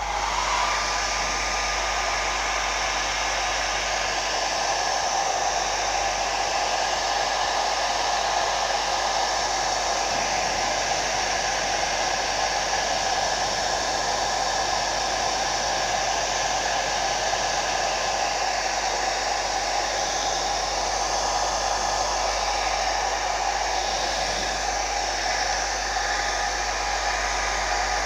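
Handheld hair dryer switched on at its warm setting and running steadily: a rush of air with a steady motor whine. It comes on right at the start.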